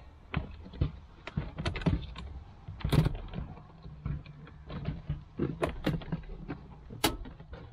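Plastic dashboard trim on a Gen 2 Toyota Prius being pried and pulled loose by hand: irregular clicks, creaks and knocks as the panel's clips work free, the sharpest about three seconds in and again near the end.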